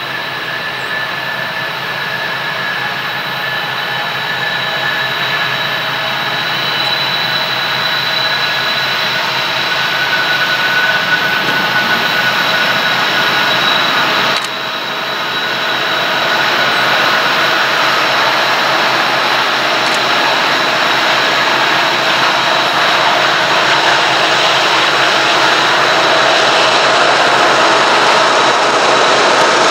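Approaching Norfolk Southern diesel freight locomotive: a steady mechanical rush with a few held whining tones, growing gradually louder as the train nears, with a short drop in level about halfway.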